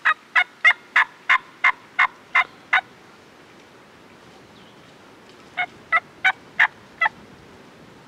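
Wild turkey yelping: a run of about nine short, sharp notes at about three a second, then after a pause a shorter run of five.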